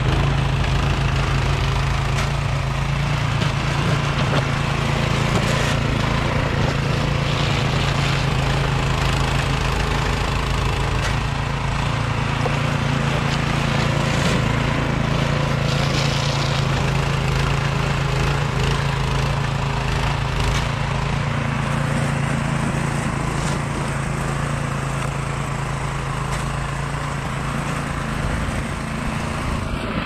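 Troy-Bilt Storm 2410 two-stage snowblower running steadily under load, its Powermore single-cylinder engine humming at a constant pitch while the auger and impeller chew through and throw snow.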